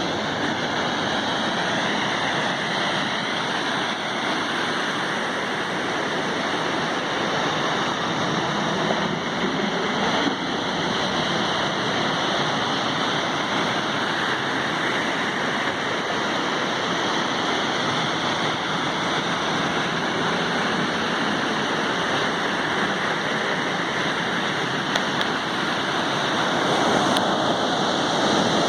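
Sea waves washing ashore in a steady, continuous rush of surf, swelling a little louder near the end.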